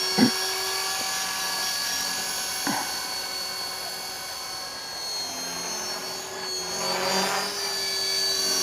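Electric T-Rex 450 RC helicopter in flight: a steady high whine from its motor and rotor, growing fainter a few seconds in and louder again near the end.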